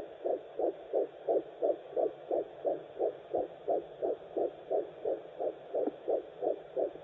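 Fetal heartbeat at 9 weeks picked up by a fetal Doppler: rapid, even whooshing pulses, about three a second (around 170 beats a minute), over a faint steady hiss.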